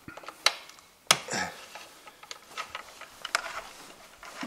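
Hand tools working the screws of a scooter's transmission cover: scattered metallic clicks and small taps, with a sharper knock about a second in.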